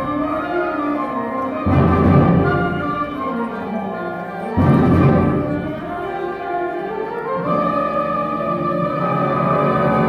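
School concert band playing a full ensemble passage, with heavy low accents about two seconds in and again about halfway through.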